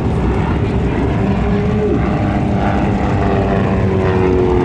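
Piper J-3 Cub's light-aircraft engine and propeller running under power as the plane pulls up steeply into a loop. The engine note sags slightly in pitch in the second half as it climbs.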